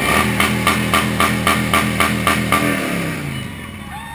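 A motorcycle engine revved hard, pulsing about four times a second, then its pitch falls away as it winds down after about three seconds.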